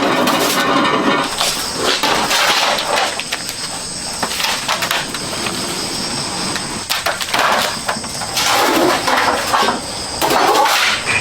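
Metalworking noise: irregular scraping and knocking of metal on metal in bursts of under a second to about a second, with short gaps between them.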